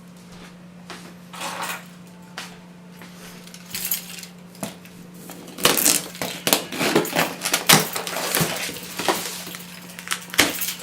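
Hard objects clinking and clattering in a run of irregular knocks, sparse at first and busiest from about halfway in, over a steady low hum.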